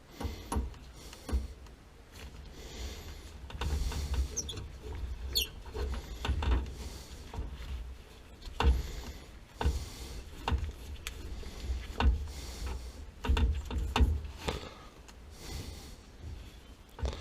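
Irregular knocks, clunks and scrapes of hands and tools working on water heater plumbing, with two brief high squeaks about five seconds in.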